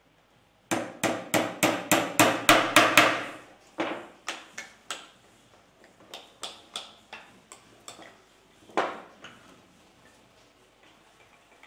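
Small hammer tapping a brass fitting into a mini brass cannon's carriage: a quick run of about ten sharp taps, about four a second, then slower, more spaced taps. Lighter knocks follow, with one firmer knock near the end.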